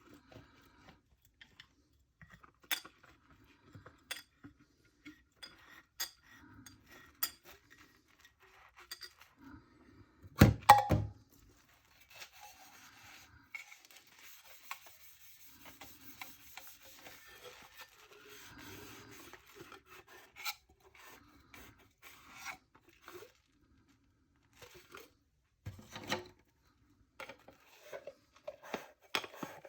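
Dishes and cutlery being hand-washed: scattered clinks, knocks and rubbing, with one loud clatter about ten seconds in and a soft steady hiss through the middle.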